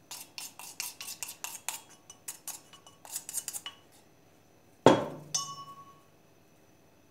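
A metal spoon clinking against a cup in quick, uneven strokes for about four seconds, stirring a honey and spice mixture; then a louder clank that rings briefly, followed by a lighter one.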